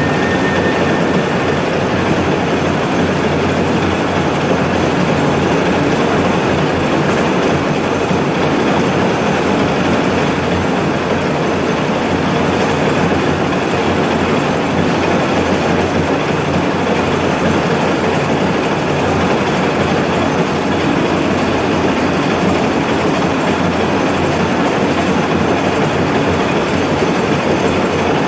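Large lathe turning an Inconel 625 bar while a trepanning tool cuts the deep 89 mm bore: a loud, steady grinding noise of metal cutting under load.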